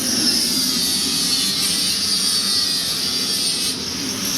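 Gas burner running with a steady rushing hiss, as from a gas forge or torch.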